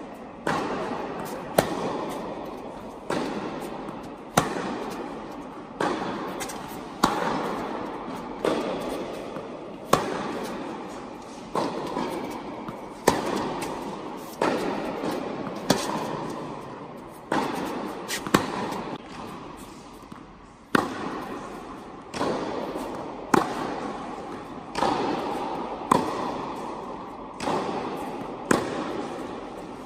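Tennis rally: balls struck back and forth with rackets, a sharp hit about every one and a half seconds, with softer bounces between. Each hit echoes and fades slowly in the large indoor tennis hall.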